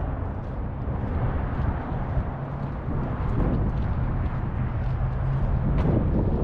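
Outdoor ambience of wind buffeting the microphone over a steady traffic rumble with a faint engine hum, and a few faint ticks.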